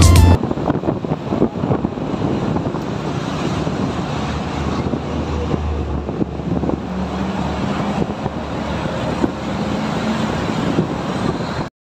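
Motorcycle ride through city traffic: the engine runs steadily under wind noise on the microphone, with passing traffic.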